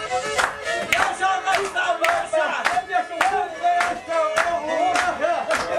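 Live folk dance music with a high, wavering melody line, over sharp hand claps about twice a second and loud shouts from the dancing men.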